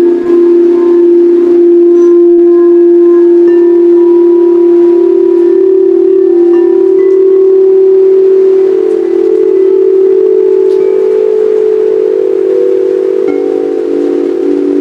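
Singing bowls sounding with loud, sustained, overlapping tones, the main pitches shifting slightly as the bowls sing, with fainter higher tones ringing above them.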